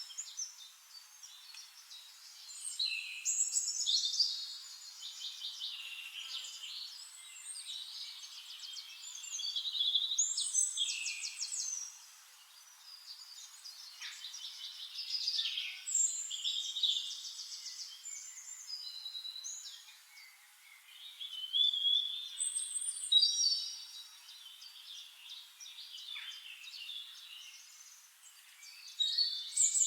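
Several songbirds singing and calling over one another: rapid trills, chirps and short gliding notes, high-pitched, swelling into louder bursts every few seconds.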